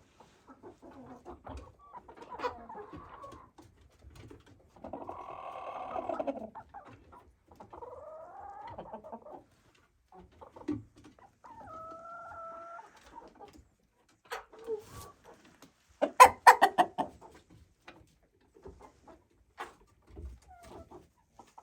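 Chickens clucking and calling in scattered, separate calls, some rising and falling in pitch. About three-quarters of the way through comes a loud, quick run of short sharp cackles, the loudest sound here.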